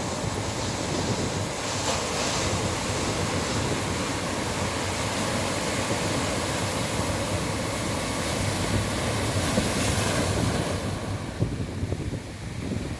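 Sea waves washing onto a beach in a continuous rush of surf, with wind rumbling on the microphone. The surf swells louder about three quarters of the way through, then eases off near the end.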